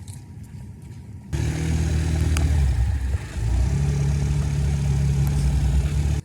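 An engine running steadily, cutting in suddenly about a second in, dipping briefly about halfway, and cutting off suddenly.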